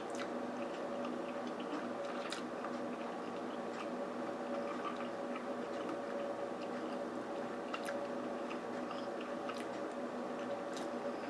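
A person chewing and eating a mouthful of chicken and shrimp gumbo, with a few short clicks over a steady background hum.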